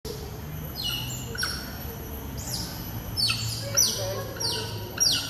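Smooth-coated otters chirping: a run of about seven high, short calls, each sliding down in pitch, repeated every half second to a second.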